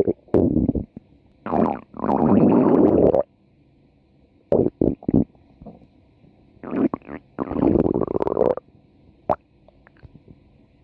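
A person's stomach growling in irregular bouts: two long gurgling rumbles of more than a second each, with shorter gurgles and pops between them.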